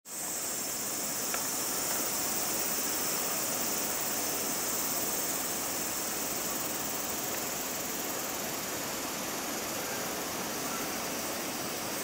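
Steady high-pitched insect chorus, a continuous shrill hiss, with a few faint ticks.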